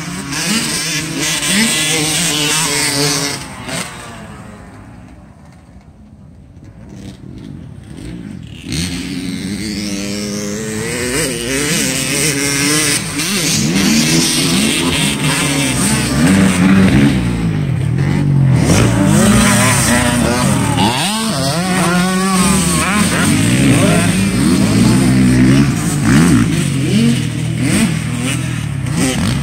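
Dirt bike engines revving up and down as several bikes ride a motocross track. The sound fades for a few seconds early on, then grows loud again from about nine seconds in as bikes come past close, their revs overlapping.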